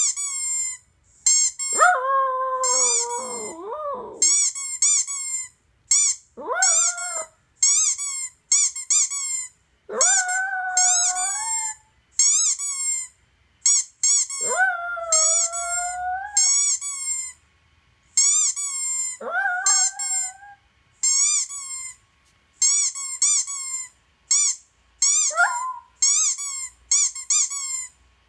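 Squeaky dog toy sounds played through laptop speakers, quick runs of high squeaks again and again, while a toy poodle answers with about six short howls that rise in pitch and then hold.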